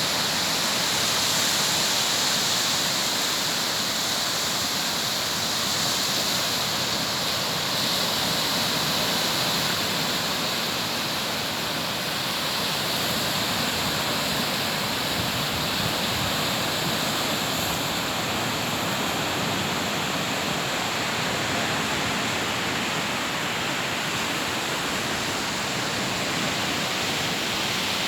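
Sea surf washing steadily onto a beach, a continuous rushing wash that rises and falls only slightly.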